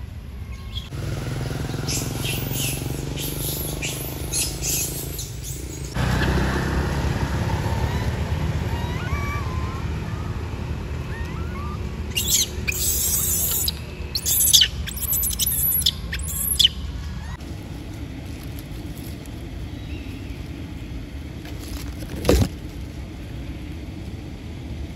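Outdoor forest ambience: a steady low rumble under short bird chirps, with bursts of high shrill sound about halfway through and a single sharp knock near the end.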